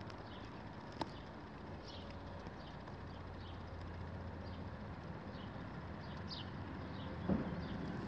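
Outdoor background noise: a steady low hum and haze with scattered faint, short high chirps, a sharp click about a second in and a thump near the end.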